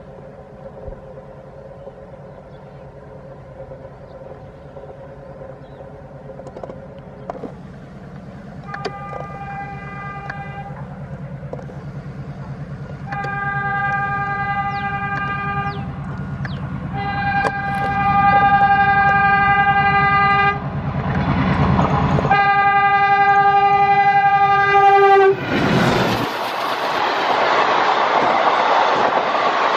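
Diesel locomotive approaching with its engine rumble growing louder, sounding its multi-tone horn in four blasts, the last one dropping in pitch as it passes. The train then rolls by with a loud rushing, clattering noise.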